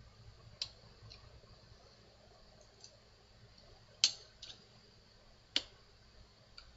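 A handful of sharp clicks at irregular intervals, the loudest about four seconds in and another about a second and a half later, over a faint steady high-pitched hum.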